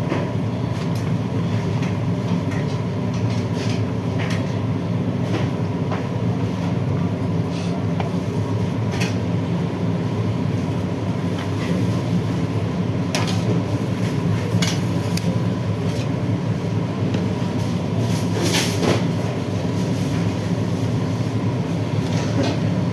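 Steady low mechanical rumble with a faint steady tone running through it, and scattered light clicks and knocks, a cluster of them about eighteen seconds in.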